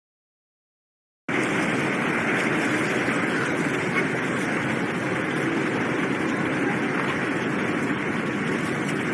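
Silent for about the first second, then a car ferry's engines running with a steady rumble and rushing water, heard from the deck as the ship lies close alongside a concrete quay with a mooring line out.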